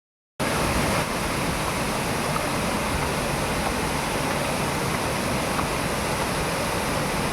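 Waterfall: a steady rush of falling water that begins just under half a second in.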